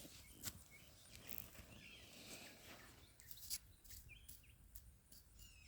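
Near silence: faint outdoor ambience with a few soft, distant bird chirps and a couple of light ticks.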